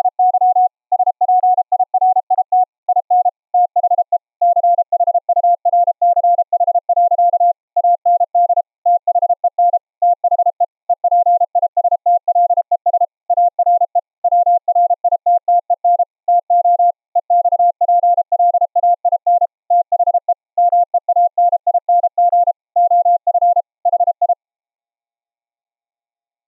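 Morse code (CW) keyed as a pure sine tone of about 700 Hz: a 555 oscillator's square wave smoothed by a software bandpass filter into a sine with raised-cosine edges, so the dots and dashes start and stop softly. The pitch shifts slightly lower about four seconds in as the mixer is tuned, and the keying stops near the end.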